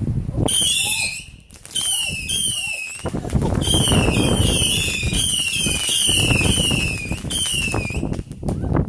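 Fireworks going off with crackling, and over them a high warbling whistle that falls and rises again about twice a second for several seconds.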